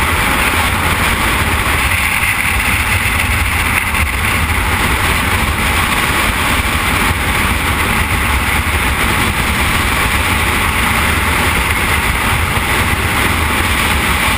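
Freefall wind rushing over the microphone during a skydive: a loud, steady rush of noise.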